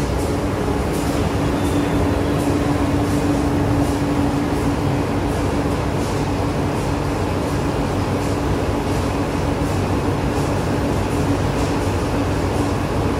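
High-speed corrugated cardboard rotary die-cutting machine running steadily as board sheets feed through: loud, even mechanical noise with a steady hum and faint, regular light clicks.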